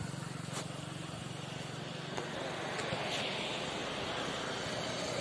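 A steady low engine hum that grows louder toward the end, with a few light clicks and knocks.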